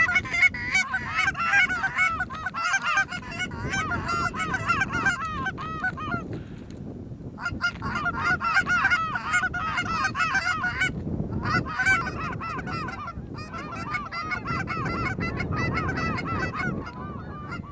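Rapid, overlapping goose honks and clucks, nearly continuous with two short lulls, the calling used to pull a flock of geese into the decoys.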